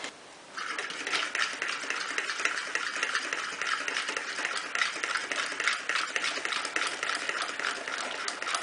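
Electric hand mixer beating an egg-lemon (avgolemono) mixture in a plastic bowl, switched on about half a second in and then running steadily.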